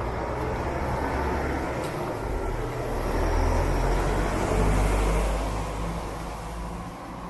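A small cab-over flatbed truck driving past on a wet street: its engine rumble and tyre noise build up and are loudest about four to five seconds in, then fade as it moves away.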